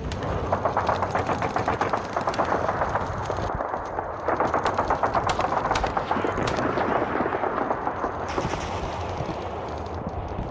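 Airsoft guns firing rapid full-auto bursts, several guns overlapping, with a few louder sharp cracks mixed in.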